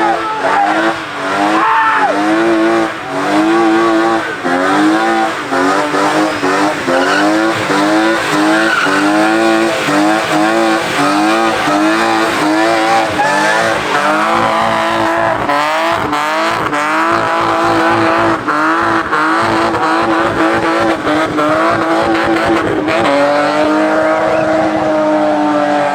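A car engine revved up and down rhythmically, a little more than once a second, with tyres squealing, as the car drifts in circles. Near the end the revs are held steady for a few seconds and then fall away.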